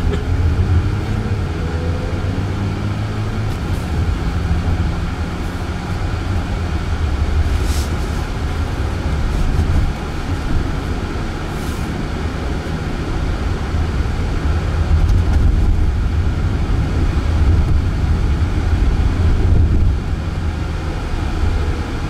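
Road and tyre noise inside the cabin of a Waymo Jaguar I-PACE electric car driving on city streets, a steady low rumble. A rising whine from the drive motor is heard in the first couple of seconds as the car picks up speed.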